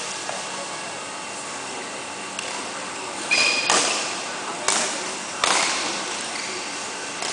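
Badminton rackets striking a shuttlecock: four sharp smacks between about three and five and a half seconds in, the first two close together, each ringing briefly in the large hall over a steady background hum.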